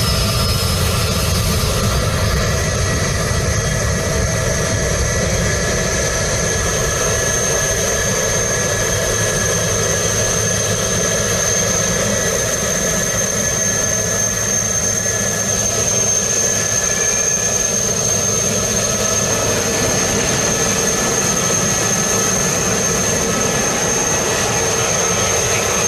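Jet airliner engines running steadily. A constant rush of noise carries several thin whining tones on top, holding their pitch without rising or falling.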